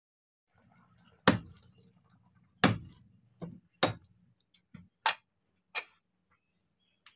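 A heavy knife chopping raw chicken on a wooden chopping block: about seven sharp, irregular chops roughly a second apart, starting about a second in.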